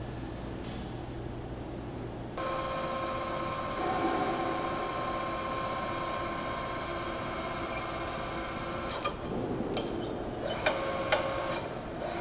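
Engine-plant assembly machinery running with a steady whine of several fixed tones, which starts abruptly about two seconds in. Near the end come a few sharp metallic clicks and knocks as an engine is handled on an overhead lift.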